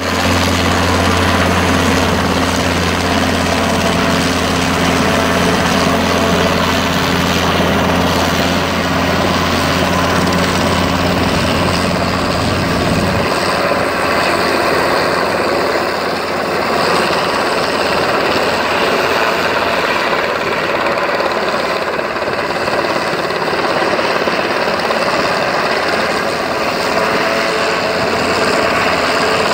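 Small two-bladed helicopter flying low, its engine and rotor running steadily with a loud, even rush. A low steady hum underneath cuts off suddenly about 13 seconds in, leaving the broad rush.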